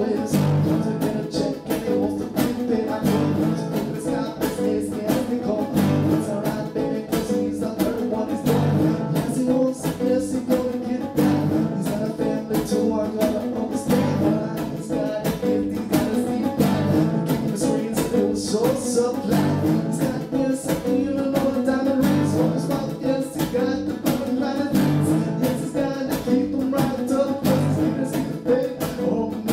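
Background music: a song with guitar and a steady beat.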